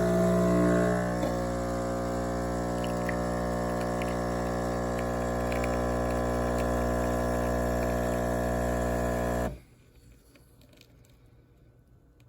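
Super-automatic espresso machine's pump running with a steady buzzing hum and liquid flowing, then cutting off suddenly about three-quarters of the way through.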